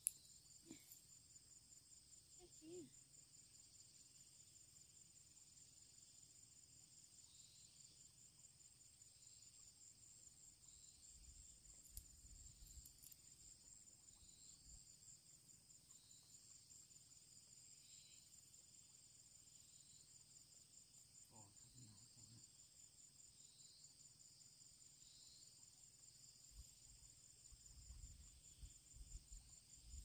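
Faint, steady high-pitched chirring of insects in a fast, even pulse.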